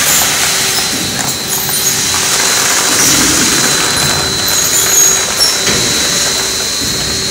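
Popcorn production line machinery running: a steady mechanical hiss with a constant high whine and a lower hum, and light scattered rattling from popcorn tumbling in a rotating perforated drum.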